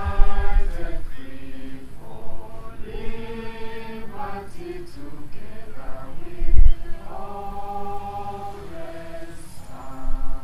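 A crowd singing the national anthem together in long held notes. Two low thumps come through, one just after the start and one about six and a half seconds in.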